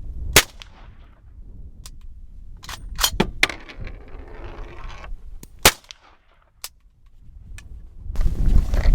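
Subsonic 300 Blackout rounds (Lehigh Defense Controlled Fracturing) fired from a Ruger Mini 14, with a sharp shot about half a second in and another near the middle, and quicker metallic clicks and clacks of the action being worked between them. The rounds are failing to cycle the semi-automatic action.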